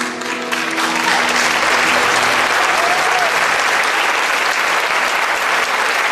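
Audience applause breaking out as the last notes of the dance music die away in the first second, then continuing steadily.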